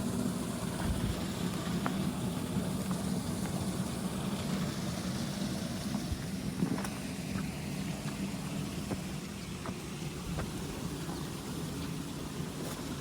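A motor vehicle's engine running steadily as a low hum, with a few faint ticks over it.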